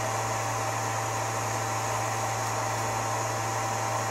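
Searl-effect generator replica running: a steady low hum with a constant higher tone over an even airy whir.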